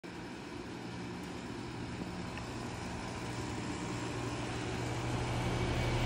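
2011 Bryant Evolution two-stage 5-ton heat pump outdoor unit running in cooling mode: a steady low hum with the condenser fan's air noise, growing gradually louder.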